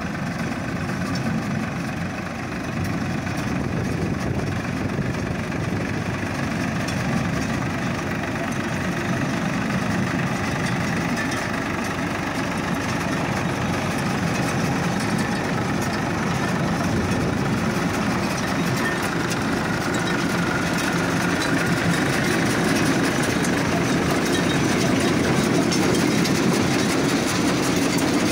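Massey Ferguson tractor's diesel engine running steadily as it pulls a planter across a field. The sound grows slightly louder toward the end.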